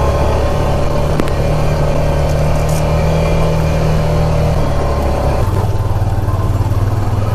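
ATV engine running steadily under way, its note dropping about five and a half seconds in as the engine speed changes.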